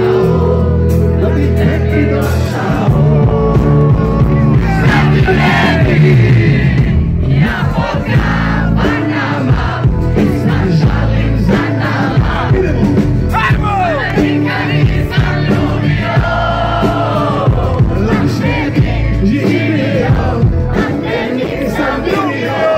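A male lead singer sings into a microphone over a live rock band with electric guitar, amplified loudly through the PA.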